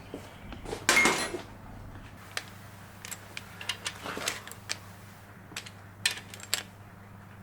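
Metal hand tools and engine parts clinking and clicking as connecting-rod cap bolts are snugged down. A louder metallic clatter with a brief ring comes about a second in, then irregular light clicks follow, over a steady low hum.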